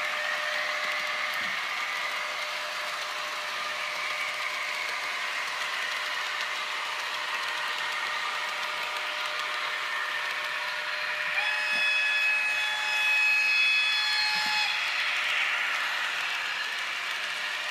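HO-scale model trains rolling through a station with a steady running noise and faint hum; about eleven seconds in, a locomotive horn sounds one long held note for about three seconds.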